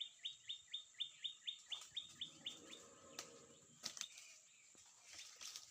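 A bird calling: a quick series of about a dozen short notes, each sliding down in pitch, about four a second, ending under three seconds in.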